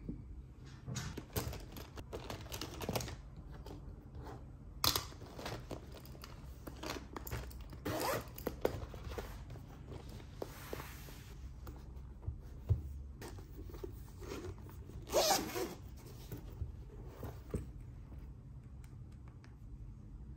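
Zippers being pulled in short rasping strokes on a clear plastic pencil pouch and a zippered carry case, with light rustling and small knocks from handling them. The longest zip stroke comes about three quarters of the way through.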